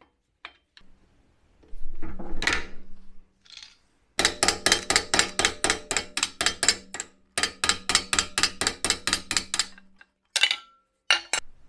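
Rapid, even metallic clicking, about seven clicks a second in two runs of about three seconds each, from a hand tool working the screws of an old Atlas bandsaw's blade guides as they are undone. A short clatter comes before the clicking, and a few single clicks come near the end.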